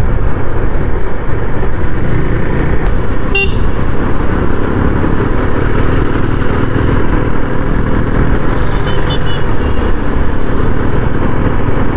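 KTM Duke 390 motorcycle riding in city traffic, a steady dense road and wind rush. A short horn toot about three and a half seconds in, and a few faint beeps around nine seconds.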